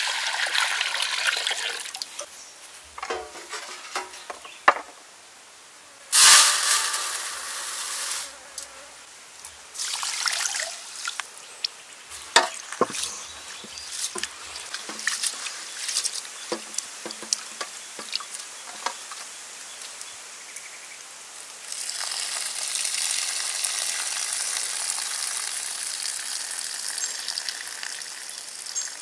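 Water poured from a jug into a steel wok, then raw rice scrubbed by hand in water in a metal tray, with small gritty rustles and splashes. For the last several seconds a steady stream of cloudy rinse water pours off the corner of the tray.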